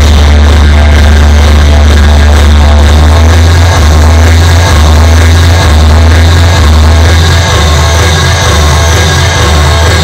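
Very loud electronic dance music played over a festival stage's sound system during a sound check, with a heavy bass line that starts stepping between notes about once a second from around four seconds in.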